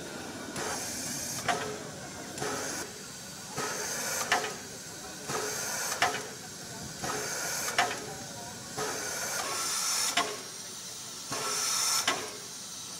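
Steam locomotive 434.2186 hissing in a slow, even rhythm, each hiss building up and ending in a sharp knock, roughly every two seconds.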